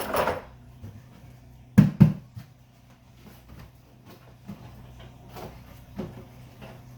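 Plastic bucket being knocked and handled to shake drilling shavings out: two sharp hollow knocks close together about two seconds in, followed by lighter scattered knocks and clatter.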